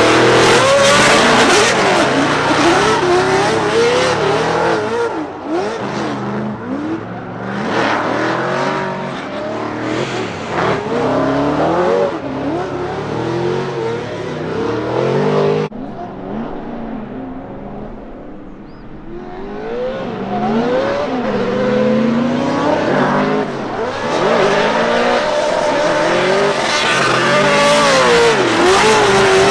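Drift cars sliding through a course: engines revving hard, pitch swinging up and down as the throttle is worked, over the squeal of tyres. About 16 seconds in the sound cuts off abruptly, comes back fainter and builds up again as the cars draw closer.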